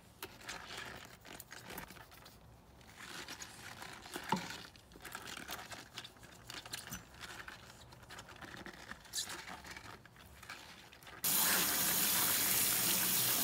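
Gloved hands scrub and handle a Smeg blender jar and its parts in a stainless-steel sink, making irregular rubbing and small clinks. About eleven seconds in, the kitchen tap comes on suddenly and water runs steadily, rinsing the jar.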